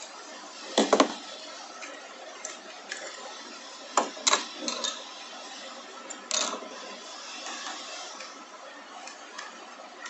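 Plastic clicks and knocks of a 3D-printer hotend shroud and its small cooling fan being handled and taken apart with a screwdriver: a loud clatter about a second in, more sharp clicks around four to five seconds and once more past six, over a steady hiss.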